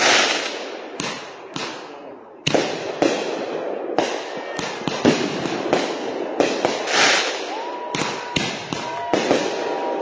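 Consumer-grade aerial fireworks going off in rapid succession, roughly two sharp bangs a second with crackling between them. A steady whistling tone joins in for the last couple of seconds.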